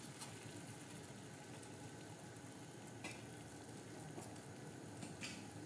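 Water boiling in a steel pot with pieces of palm jaggery just added: a faint, steady bubbling hiss, with a couple of faint ticks about three and five seconds in.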